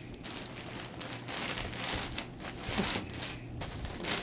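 Crinkling and rustling close to the microphone, in irregular bursts, as something is handled.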